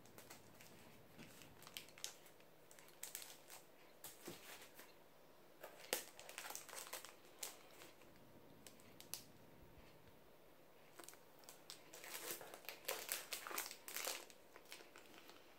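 Plastic shrink-wrap on boxed paper planners crinkling faintly as they are handled and lifted out of a cardboard box, in scattered short crinkles that are busiest a few seconds before the end.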